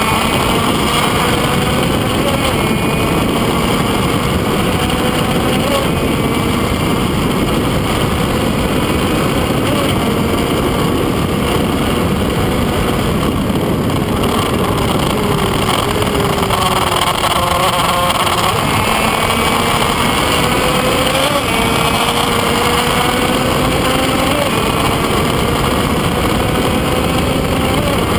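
Onboard sound of a Kreidler Van Veen 50 cc two-stroke racing motorcycle at speed, its engine pitch climbing through the gears and dropping back at each shift, under heavy wind noise on the microphone. About two-thirds through, the revs fall away once as it slows, then climb again.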